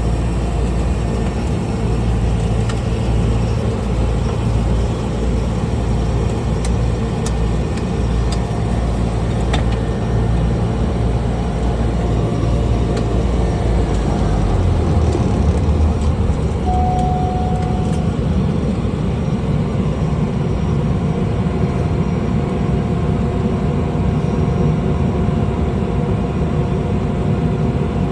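Small plane's piston engine running at low power while taxiing, heard from inside the cabin as a steady drone whose low note shifts about halfway through.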